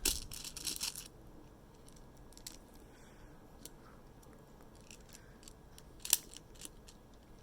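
Airsoft BBs being loaded from a speed loader into a CO2 pistol's magazine: a quick flurry of small clicks and rattles in the first second, then scattered faint clicks, with a sharper cluster of clicks about six seconds in.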